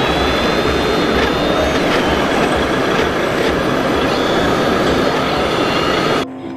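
Radio-controlled model hydraulic excavator at work: a steady mechanical noise with a thin whine over it, cutting off abruptly near the end.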